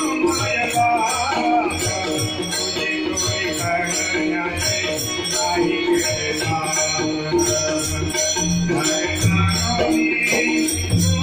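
Bhajan music accompanying a Marathi abhang: jingling hand percussion and drum strokes keep a steady beat under held melodic notes.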